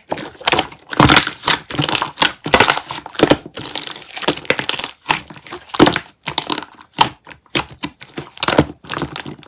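Close, dense crinkling and crunching in quick, irregular strokes from handling and eating a peach Maiju chewy candy.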